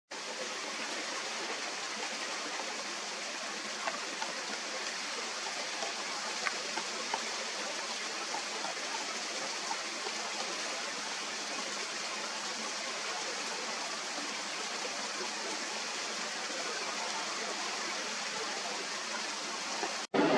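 Steady rushing noise, with a handful of faint, sharp, irregular taps about four to ten seconds in: a pileated woodpecker pecking at wood.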